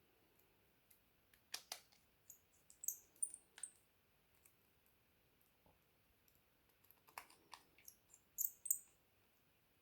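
Small, sharp clicks and taps of tools and parts being handled on a smartphone under repair. They come in two clusters, the first starting about a second and a half in and the second around seven seconds in.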